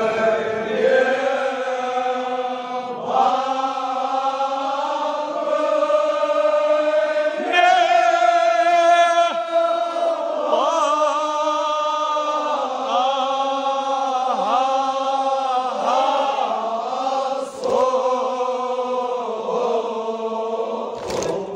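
A group of men chanting a Kashmiri marsiya, a devotional elegy, in unison, in long drawn-out phrases of held, wavering notes with short breaks between them.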